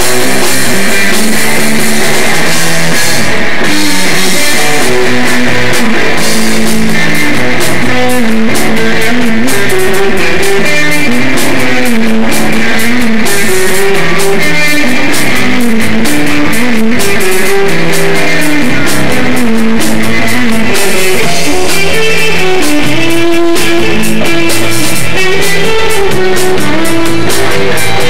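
Live rock trio playing loudly and without pause: electric guitar over bass guitar and a drum kit.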